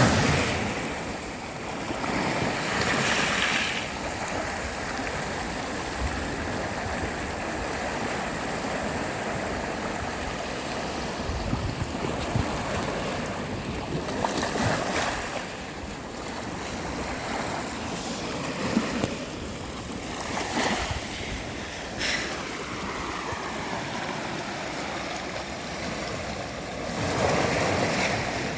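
Sea waves washing onto a sandy beach: a continuous rush of surf that swells louder for a moment every several seconds as waves break.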